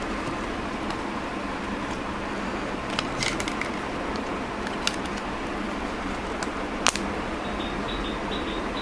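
A few sharp plastic clicks and handling noises as a back cover is pressed onto a smartphone, the loudest click near the end, over a steady background hum.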